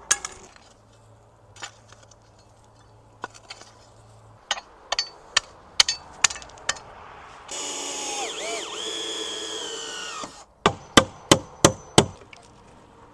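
Hand tools working fence lumber: scattered hammer knocks on wood, then a power drill running for about three seconds with its pitch dipping under load, then five quick hammer blows in a row.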